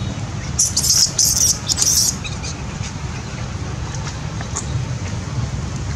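Newborn long-tailed macaque giving three short, shrill screeches in quick succession within the first two seconds as an adult female pulls at it, over a steady low rumble of wind on the microphone.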